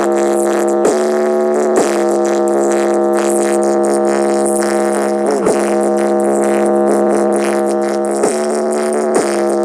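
Loud music played through a miniature toy pickup's small built-in Bluetooth speaker: a steady held low chord, broken by short downward pitch swoops every second or few.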